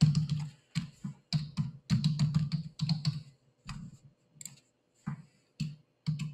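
Typing on a computer keyboard: a quick run of irregular keystrokes that thins out to single strokes in the second half.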